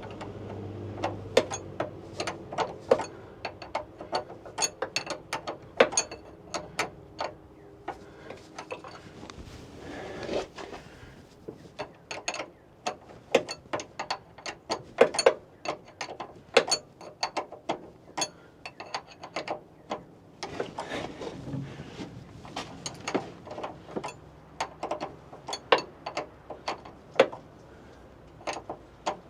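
Hand ratchet wrench clicking in short irregular runs, with brief pauses about eight and nineteen seconds in.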